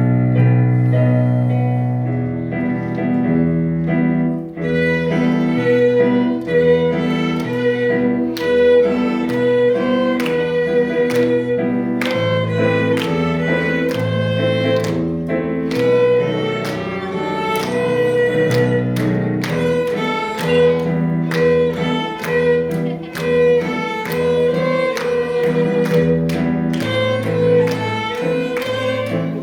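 Small ensemble playing an instrumental piece, with bowed strings carrying a melody over a bass line that changes note about once a second.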